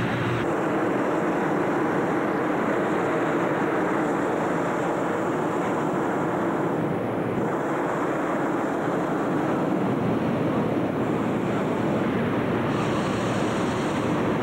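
Hot air balloon propane burners firing, many at once, making a steady rushing noise with no break.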